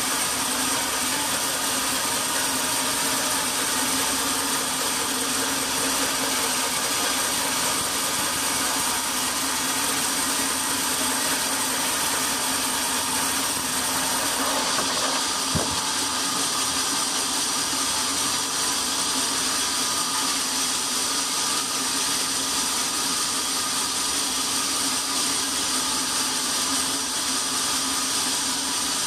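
Band sawmill running steadily, its blade cutting lengthwise through a large log to slice off a plank. A single knock comes about halfway through.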